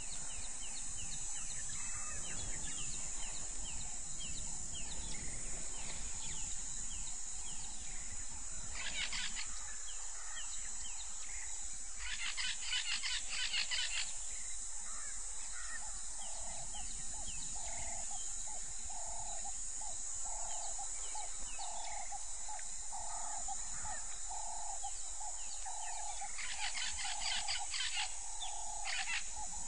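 Wild birds calling: short falling chirps, a few harsh rattling bursts, and from about halfway a single note repeated about once a second, over a steady high hiss.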